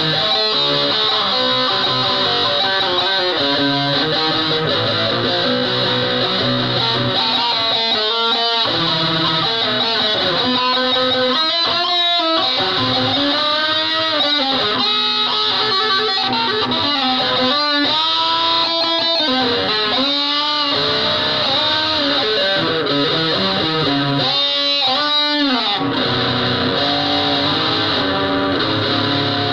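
Electric guitar played loud through heavy distortion: a continuous, dense wash of strummed chords and held notes, with notes that bend and waver in pitch through the middle stretch.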